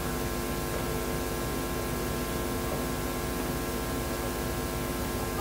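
Steady electrical hum with several constant tones over an even hiss, unchanging throughout.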